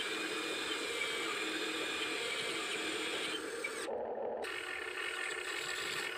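Amewi radio-controlled model excavator's electric motors and gear drives whining steadily as the arm moves. The whine shifts in pitch about three and a half seconds in and changes briefly near four seconds.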